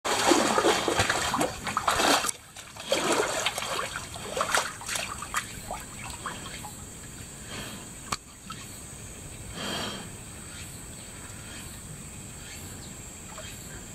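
Water splashing and sloshing as a white tiger moves in its bathing pool, loudest and most broken up in the first five seconds, then dying down to faint lapping with one more splash a little before ten seconds.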